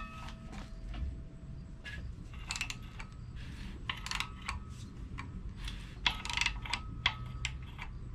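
Ratchet wrench clicking in short bursts, a stroke every second or two, turning the engine's crankshaft over by hand.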